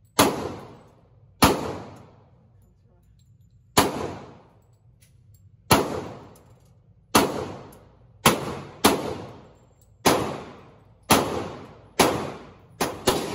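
Handgun shots fired at an indoor shooting range, each a sharp crack followed by a long echoing tail off the range walls. There are about a dozen shots at irregular gaps of roughly one to two seconds, with a quick pair near the end.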